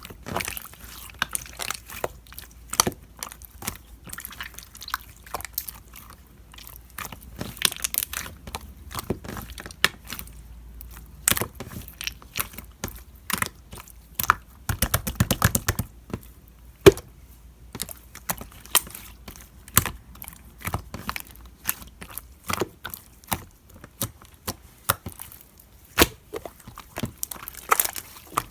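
Clear slime being squished and stretched by hand, making many irregular sticky clicks and pops, with a denser run of squelching about halfway through.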